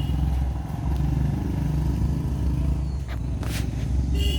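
A steady low engine rumble, like a motor idling, with a brief hiss about three and a half seconds in.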